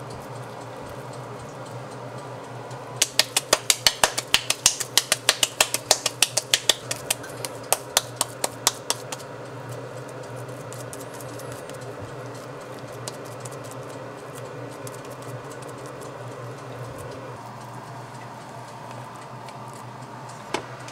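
Raw ground-beef hamburger patty slapped back and forth between the palms to knock the air out of it. The slaps come as a quick run of sharp claps, about five a second, starting a few seconds in and lasting about six seconds, over a low steady background. There is one knock near the end.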